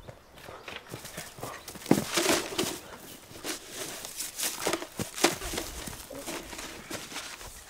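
Running footsteps crunching over dry leaves, sticks and brush on a forest floor: a fast, irregular run of crunches, snaps and knocks, loudest about two seconds in.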